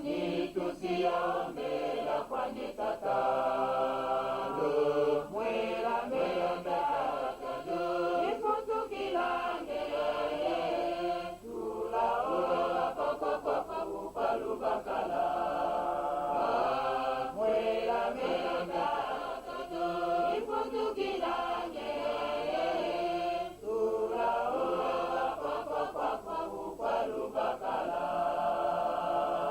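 A choir singing in long phrases, pausing briefly about a third and again about two thirds of the way through.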